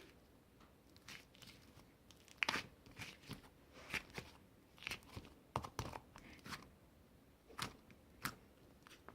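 Irregular crinkling and tearing handling noises, a dozen or so short crackly strokes with quiet gaps between them, the loudest about two and a half seconds in.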